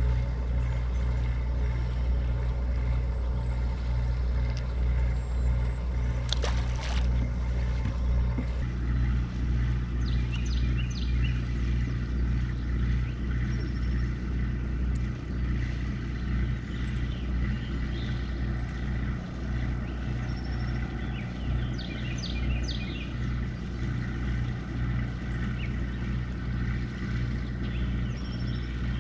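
A generator on a nearby boat running in the background, a steady low hum. A brief click sounds about six seconds in.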